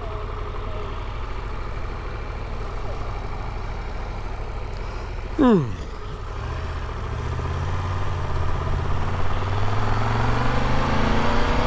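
Vehicle engine running with a steady low drone. About halfway through comes a brief loud sound that falls sharply in pitch, and after it the engine note climbs steadily as the vehicle picks up speed.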